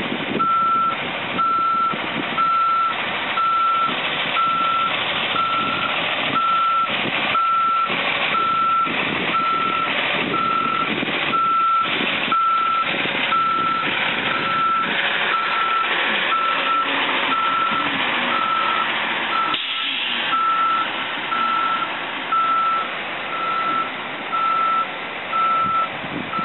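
A 40-foot transit bus's reversing alarm beeps steadily while the bus backs up, one high-pitched tone repeated a little over once a second. The bus's running noise carries on underneath.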